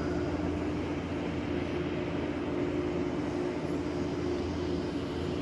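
Steady drone of a running monocable gondola line, its haul rope passing over the tower sheaves, with a low hum throughout.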